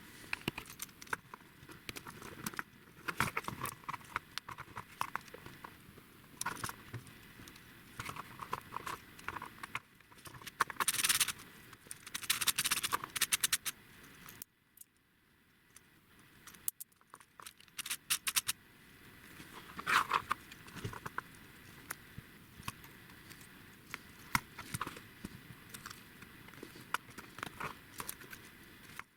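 Irregular clicks, taps and light rattles of small hard parts being handled, with a few short scraping stretches.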